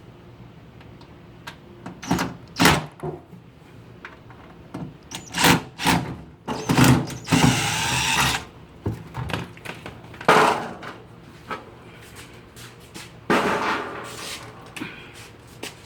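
A power drill/driver backing out screws in a series of short runs, the longest about a second long just before the middle, with clunks and knocks of handling in between.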